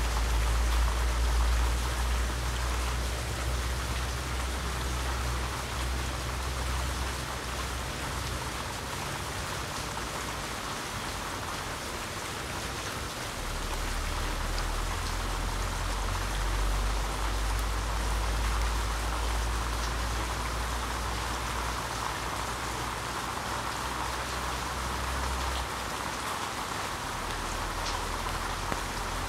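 Steady rain falling on grass and standing floodwater: a constant, even hiss. A low rumble runs underneath, dropping away twice and coming back.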